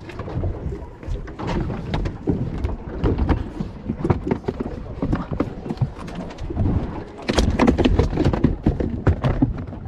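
A freshly caught yellowtail (jurel) thrashing inside the boat's ice chest, its body and tail beating against the walls in a quick, irregular drumming of thuds, hardest in a burst near the end.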